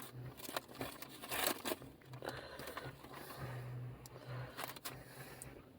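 Crinkling and scraping of takeaway food packaging as the meal is handled, with scattered small clicks and a faint low hum that comes and goes.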